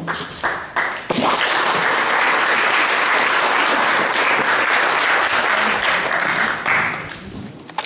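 Audience applauding: a few scattered claps, then full applause from about a second in, dying away near the end.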